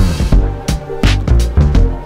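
Background music with a steady drum beat and a prominent bass line.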